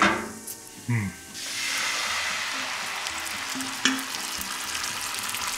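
Hand-crushed canned tomatoes going into a hot skillet of shallots and oil, setting off a loud, steady sizzle that starts suddenly about a second and a half in. A couple of clicks come from a spoon scraping the tomatoes out of a metal bowl.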